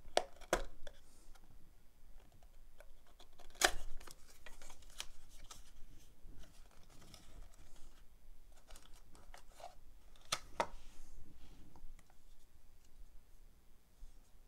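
A small cardboard box being opened and unpacked by hand: flaps folding open and cardboard rustling and scraping, broken by sharp clicks and taps. There is a pair of clicks at the start, the loudest about three and a half seconds in, and another pair about ten seconds in.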